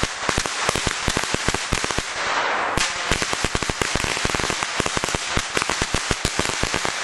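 A string of firecrackers going off: a fast, uneven volley of sharp bangs, many each second, with crackling between them.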